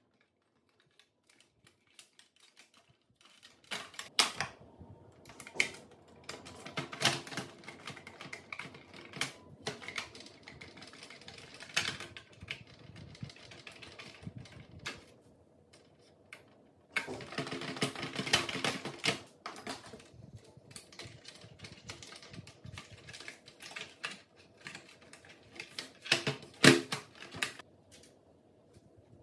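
Plastic parts of a Roborock robot vacuum being handled and fitted back into its chassis: irregular clicks, taps and rattles, with a busier clatter midway and a sharp knock near the end.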